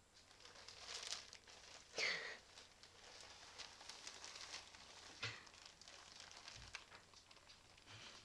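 Thin clear plastic bag crinkling and rustling faintly as two cats shift around inside it. There is one louder, sharper sound about two seconds in.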